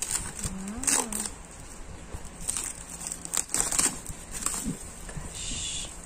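Clear plastic shrink-wrap being cut and peeled off a phone box: a run of short crinkles and tearing rustles.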